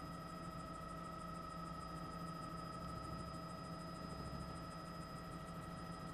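Faint, steady hum and hiss from a news helicopter's open microphone feed, with several constant tones: the muffled cabin and engine noise of the helicopter in flight.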